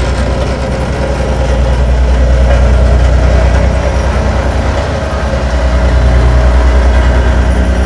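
Road roller's diesel engine and drum running loud and low over compacted gravel, with a rapid, even pulsing; the ground shakes with it.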